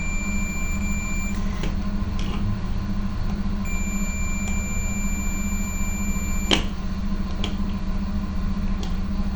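Digital multimeter's continuity beeper sounding a steady high tone while its probes touch a microwave circuit-board coil, in two stretches: up to about a second and a half in, and again from about four seconds to six and a half, where it cuts off with a click. The tone shows the coil is conducting. A steady low hum runs underneath.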